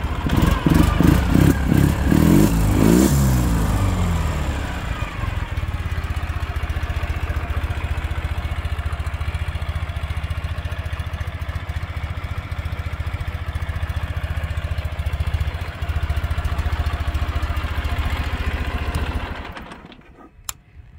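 2008 Ural Tourist's carburetted 750 cc boxer-twin engine, running on its factory jets. It is revved a few times, then settles into a steady idle and stops near the end.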